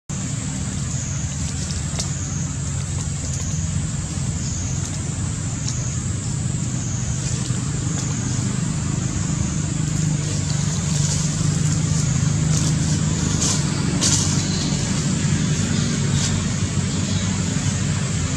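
Steady low engine hum, as from running motor vehicles, with a constant thin high-pitched whine above it and a few faint ticks.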